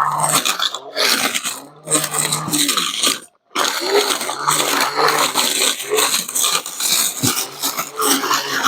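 Battery-powered brush cutter running, its motor humming and the spinning blade cutting through grass, the sound swelling and falling as it takes the load. It cuts out abruptly for a moment just over three seconds in.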